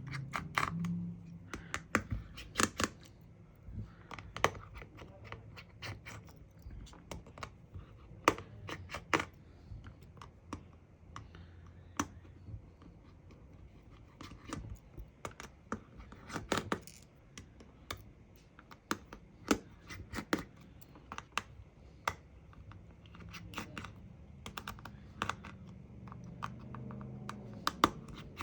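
Irregular small clicks and taps of a precision screwdriver and small tools on a smartphone's plastic frame as its screws are taken out.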